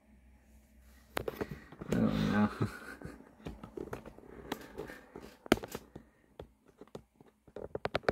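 Handling noise: scattered clicks and knocks of plastic action figures and the camera being moved about on a desk, with a short voice-like sound about two seconds in and a quick run of clicks near the end.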